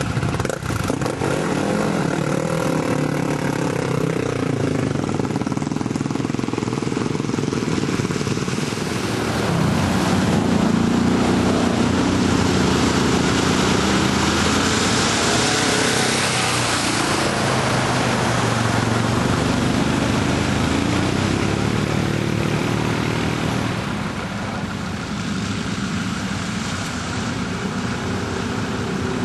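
Quad bike (ATV) engines running and revving as the quads wade through deep muddy water, with water splashing. The engine and splashing are loudest from about a third of the way in to past the middle.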